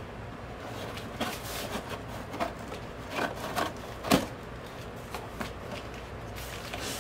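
Scissors blade slitting the packing tape along a cardboard shipping box: a run of scratchy rasps and crinkles, with a sharper click about four seconds in.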